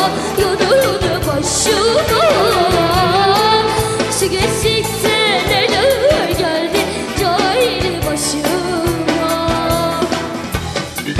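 A young girl singing a Turkish song medley with instrumental backing. Her melody winds and slides with many ornaments.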